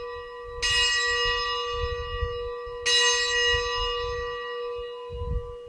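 Consecration bell struck twice, the strokes about two seconds apart, each one ringing on with clear steady tones and slowly fading. It marks the elevation of the host after the words of consecration.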